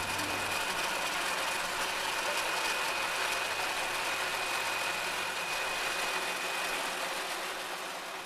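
Construction machinery running: a steady mechanical din with a thin, high whine that fades out about seven seconds in.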